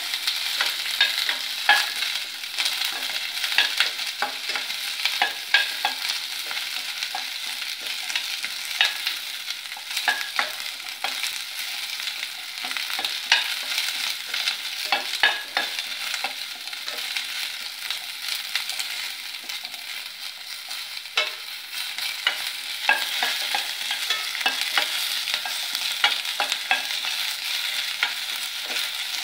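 Small onions (shallots) sizzling steadily in hot oil in a stainless steel kadai, with frequent clicks and scrapes of a spatula stirring them against the pan.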